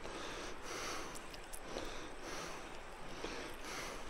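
A man breathing quickly and audibly close to the microphone, a breath a little more often than once a second.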